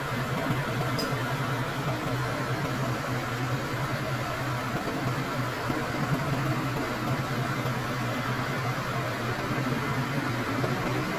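A diesel engine running steadily, with no change in speed.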